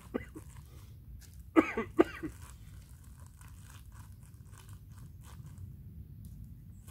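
Crinkling, rustling and clicks of camp cooking kit being handled with paper towel and packed into a bag, with a couple of loud, sharp squeaky noises about a second and a half in.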